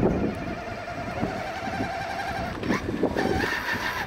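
Electric RC truck with semi-trailer driving over paving stones: a steady, wavering motor whine over a low rumble, with a few knocks about three seconds in.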